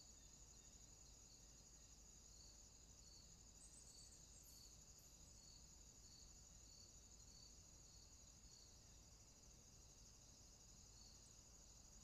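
Near silence with a faint, steady high-pitched insect trill and soft chirps repeating about every three-quarters of a second.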